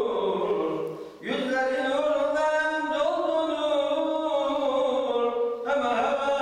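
A lone man's voice chanting religious recitation without accompaniment, in long, drawn-out melismatic phrases. There are short breaths about a second in and again near the end.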